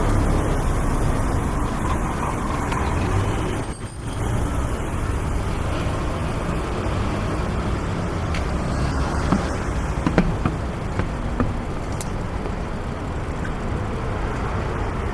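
Traffic on a busy city street: a steady rumble of passing cars and buses, loudest at the start and easing off, with a few short clicks and knocks past the middle.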